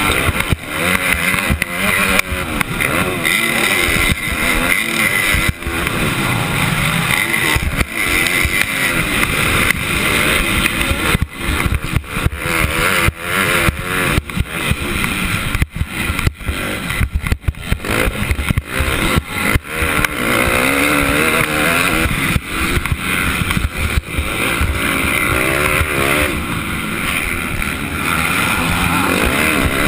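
A 250-class motocross bike's engine, heard from the rider's helmet camera, revving up and down with the throttle and gear changes through a race lap. The sound is choppy, with frequent brief dropouts.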